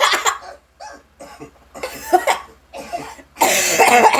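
Cartoon children's voices coughing: a string of short, separate coughs from several characters, with a louder burst of coughing near the end.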